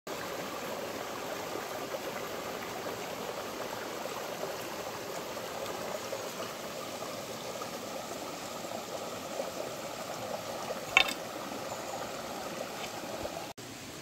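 Shallow mountain stream running over mossy rocks: a steady rush of water, with one brief sharp sound about eleven seconds in.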